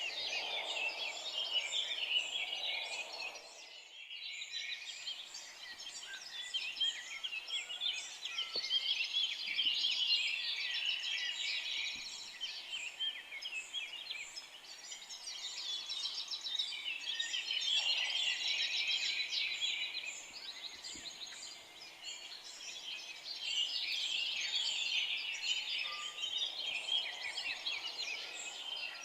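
Dense chorus of many small songbirds chirping and twittering at once, swelling and fading about every eight seconds.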